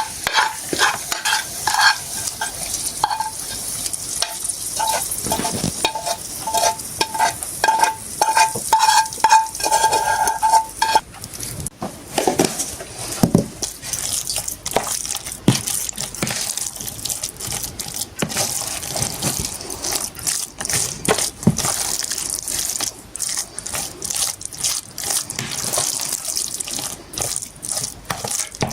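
Clinking and scraping of a utensil against a pot or dish, with a ringing note on each clink for the first dozen seconds, then scattered knocks and clicks over a steady hiss.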